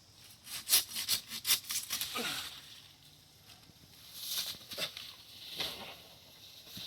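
A quick run of sharp woody cracks and snaps in the first two seconds, then a few soft rustles.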